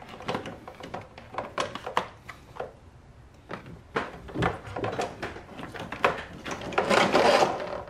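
A heavy-gauge power cable being handled and pushed through a rubber grommet in the firewall: irregular scraping, rustling and light knocks, with denser, louder scuffing near the end.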